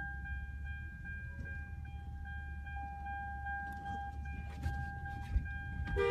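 Low steady rumble with a faint steady high-pitched tone over it; a car horn begins to honk right at the end.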